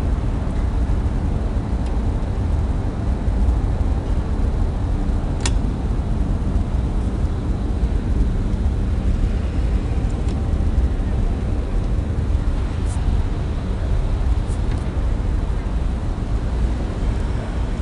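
1974 KONE traction elevator cab travelling in its shaft: a steady low rumble, with a sharp click about five seconds in and a few faint ticks later.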